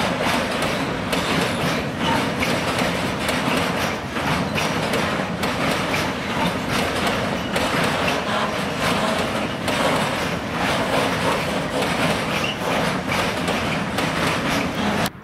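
Freight train of flat wagons loaded with steel coils rolling past: a steady rumble with wheels clacking over the rail joints, cut off suddenly near the end.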